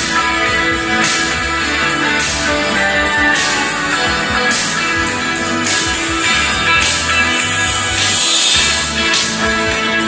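Guitar-led rock music played loud through a homemade 2.1 speaker set: a bass-reflex subwoofer and two two-way satellite speakers.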